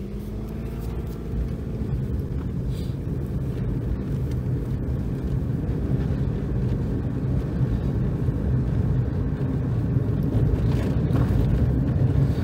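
2011 Toyota Vitz's three-cylinder engine pulling the car along under load at around 1,500 to 2,000 rpm, mixed with road noise and heard from inside the cabin. The rumble grows louder over the first few seconds as the car gathers speed.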